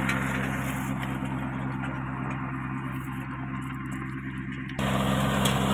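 Kubota 21 hp mini tractor's diesel engine running steadily under load, driving a rotavator through the soil; the upper noise dulls about a second in and comes back abruptly near the end.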